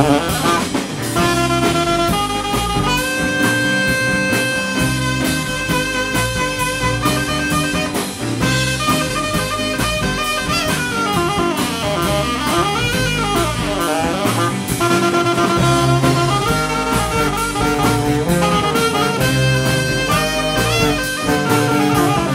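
Live band playing an instrumental passage: saxophone and trombone play held melody notes over guitar and a drum kit keeping a steady beat.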